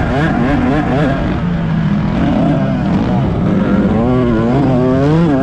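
Dirt bike engine heard close up from on board while racing, its revs rising and falling again and again as the throttle is worked, climbing higher about four seconds in.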